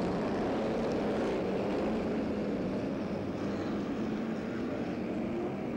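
Modified sprint car engines running at racing speed on a speedway, a steady drone of several cars together with a slight rise and fall in pitch.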